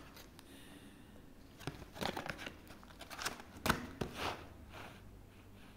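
Packaging being handled: cardboard boxes and plastic shrink-wrap of fireworks shifted on a table, giving a few short crinkling rustles and a light knock.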